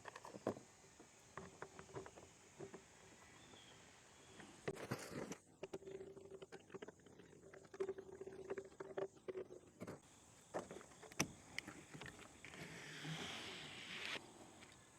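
Faint, scattered clicks and knocks of objects being handled and set down while tidying up.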